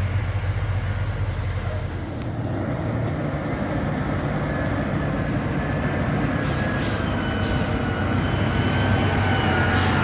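Heavy truck's engine running, with a steady hiss over it and a few brief clicks near the end.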